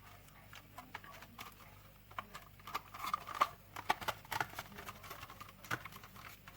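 Irregular small clicks, taps and rustles of plastic housing parts and wires being handled and fitted together, busier from about two seconds in.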